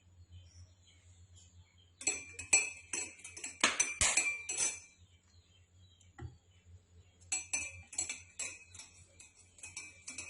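A metal spoon stirring in a glass, clinking quickly and repeatedly against its side with a short ringing. There are two runs of clinks: one about two seconds in that lasts some three seconds, and another starting about seven seconds in.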